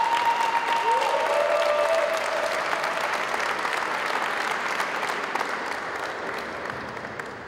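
Crowd in a sports hall applauding and cheering. Two long rising whoops carry over the clapping in the first few seconds, and the applause slowly fades toward the end.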